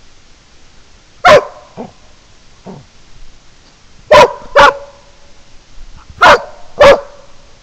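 Collie dog barking in short, sharp barks: one loud bark about a second in, two fainter ones just after, then two quick pairs of loud barks near the middle and near the end.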